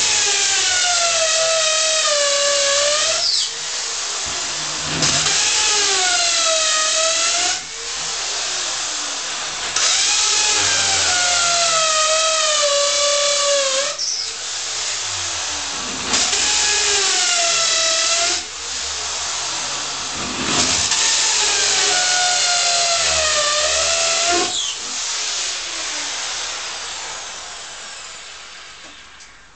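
Corded electric drill with an 8 mm bit boring holes into a concrete wall: five long spells of loud drilling, the motor's whine sagging and recovering in pitch as the bit bites, with quieter running between. It dies away near the end.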